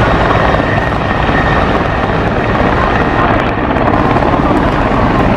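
Large military transport helicopter hovering low: a steady, loud roar of rotor and turbine with a thin, high turbine whine running through it.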